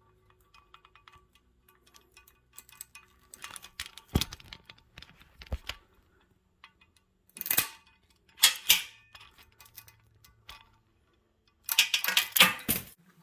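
Metal hand tools clinking and clicking as cutters are tried on the steel machine cable: scattered light clicks, a few sharper clanks, and a rapid run of clicks near the end.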